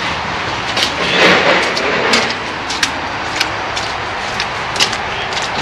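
Steady hiss of rain outdoors, with scattered sharp clicks and knocks throughout and a louder swell of noise about a second in.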